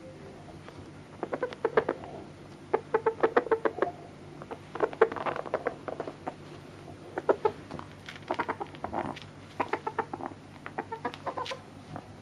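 Sebright cockerel clucking in about seven short runs of quick, clicky notes, with brief pauses between them.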